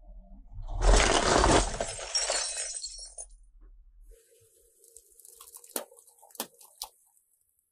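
The glass face of a plastic-framed wall clock cracking and crunching under a car tyre, loud for about two seconds. A few seconds later come several sharp cracks as woven baskets give way under the tyre.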